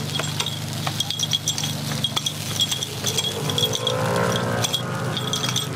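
A metal takoyaki pick repeatedly clicking and tapping against a takoyaki pan as cooked balls are flicked out into a paper tray. The ticks ring briefly over a steady low hum.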